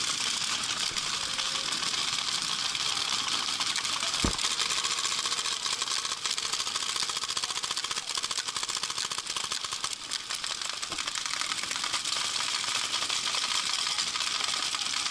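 Many paintball markers firing rapidly at once, a dense, steady crackle of popping shots. One sharp, louder knock comes close by about four seconds in.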